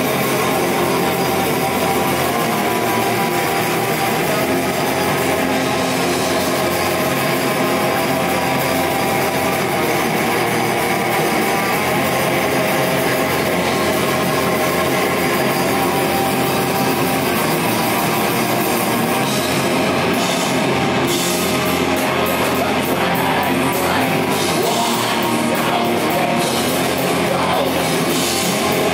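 Heavy metal band playing live and loud: distorted electric guitars, bass guitar and a drum kit, with the drum pattern changing to separate cymbal hits about two-thirds of the way in.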